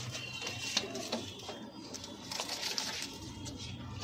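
Pigeons being handled in their loft: scattered light clicks, taps and rustles over a low steady hum.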